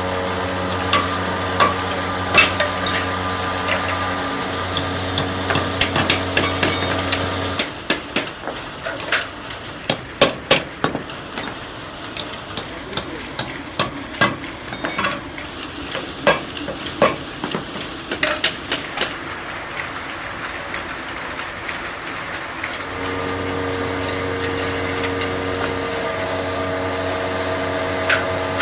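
A workshop machine's electric motor hums steadily with some clicks. About eight seconds in it stops, and a run of irregular hammer taps on a wooden workpiece follows for roughly fifteen seconds. The motor then starts humming again near the end.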